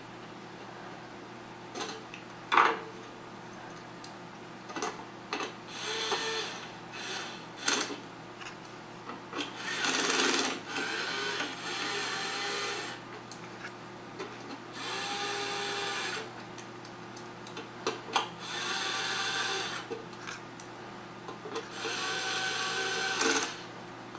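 Cordless electric screwdriver driving in the screws of a document scanner's rear cover. The motor whines in about six short runs of one to two seconds each, with small clicks and handling knocks between them. The sound comes off a monitor's speakers.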